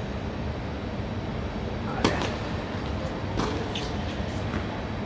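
Tennis ball struck by a racket in a rally on a hard court: one sharp hit about two seconds in, then a few fainter ball hits and bounces, over a steady low background rumble.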